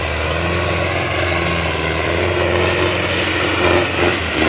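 Turbocharged Sonalika 750 tractor's diesel engine, fitted with a large 61 no. turbo and a modified fuel pump, running steadily at about 2500 RPM under load as it pulls a disc harrow through wet soil. It holds its revs without dropping under the load.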